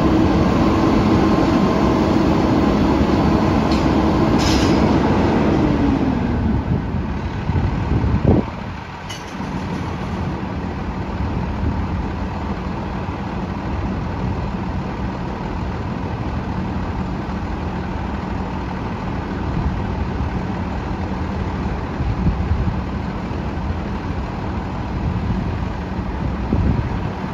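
Garbage truck's diesel engine running at raised speed, then winding down to a steady idle about six seconds in. A single clank comes about two seconds later, and a few short bangs come near the end.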